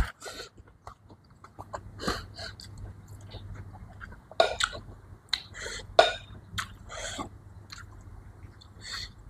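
A person eating close to the microphone: irregular chewing and wet mouth sounds, with several louder smacks.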